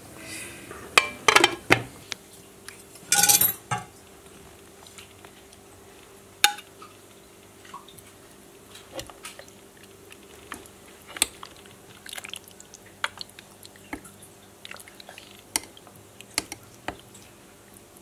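Kitchen clatter of a glass lid and metal serving utensils knocking against a slow cooker's ceramic pot and a plate: a few loud clanks in the first four seconds, then scattered light taps and scrapes.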